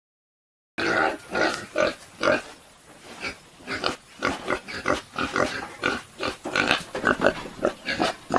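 Domestic pigs grunting close up in quick, short, repeated grunts, several a second, starting just under a second in after silence.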